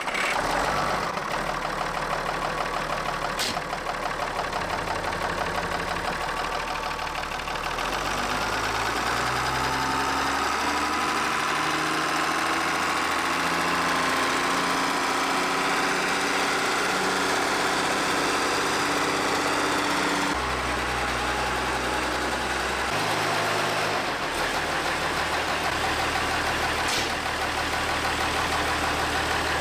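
Wheel loader engine running steadily, its pitch shifting in steps, with an abrupt change about twenty seconds in.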